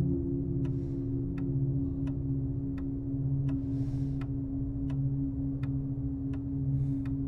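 Clock ticking evenly, about three ticks every two seconds, over a steady low drone, with a few soft whooshes of hiss.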